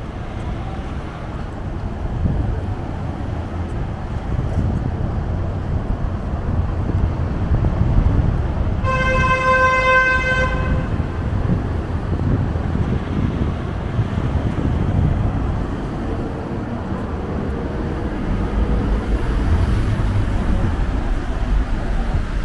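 City street traffic rumbling steadily, with one steady vehicle horn blast of about two seconds near the middle.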